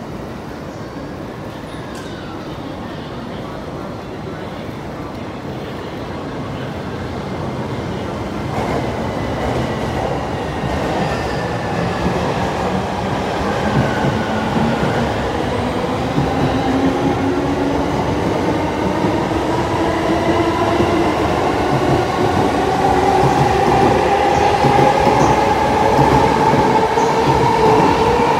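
JR East E231 series 1000 electric commuter train pulling away from the platform, its inverter-driven traction motors whining. Several tones climb steadily in pitch as it gathers speed, over a growing rumble of wheels on rail. The sound steps up about eight seconds in and grows louder to the end.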